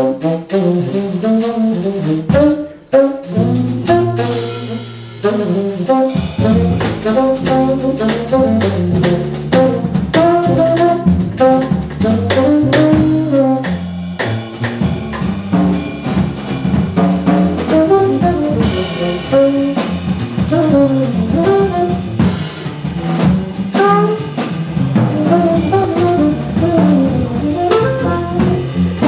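Live jazz trio playing medium swing: tenor saxophone on the melody over a walking upright double bass and a drum kit with ride cymbal. The full trio settles into a steady swing about six seconds in.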